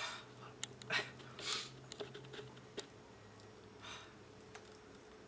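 A person taking a few short, sharp breaths, four in all, the last near the end, with a few light clicks and taps in between.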